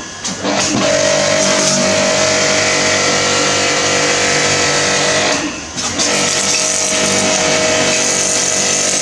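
StarQ W3 electric pressure washer running: the steady hum of its induction-motor pump under the hiss of the high-pressure water jet. The sound drops briefly about five and a half seconds in, then picks up again.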